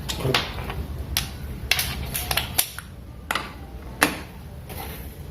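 Sharp metallic clicks and knocks at irregular intervals from hand tools and brake parts being handled during a rear brake pad change, over a low background hum. The loudest click comes about four seconds in.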